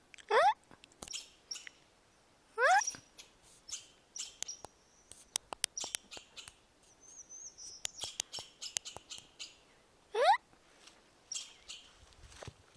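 Chipmunk calling: a run of short, high chips and squeaks, with three loud calls that slide steeply down in pitch, about a second in, near three seconds and near ten seconds.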